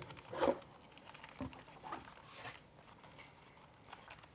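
Handling noise from the plastic parts of a cordless stick vacuum: a few light knocks and rustles, the loudest about half a second in.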